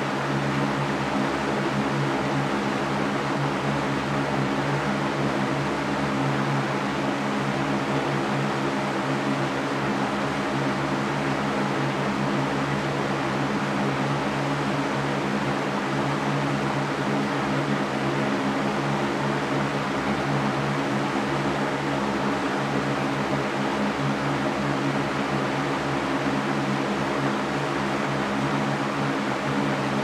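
Electric fan running steadily: an even rush of moving air over a constant low motor hum, unchanging throughout.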